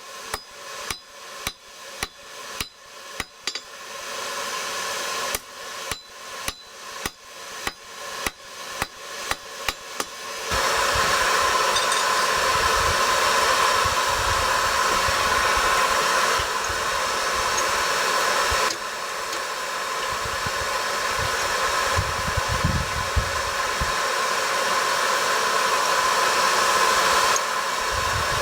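Hand hammer striking steel on an anvil in steady forging blows, about two a second, with a short break around four seconds in. From about ten seconds in, a loud steady rushing noise takes over.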